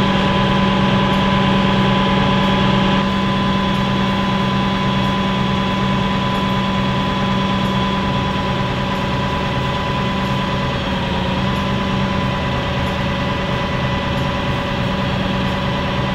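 Crane truck's engine idling steadily, a constant low drone with a thin steady whine above it.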